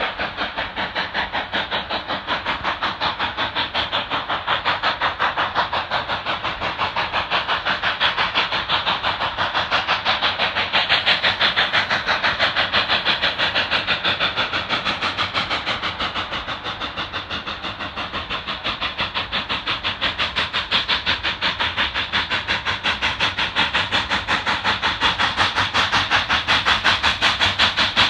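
Denver and Rio Grande Western K-36 coal-burning steam locomotive working its train, its exhaust chuffing in a fast, even beat of about three to four strokes a second. The chuffing dips a little past the middle, then grows louder toward the end as the engine approaches.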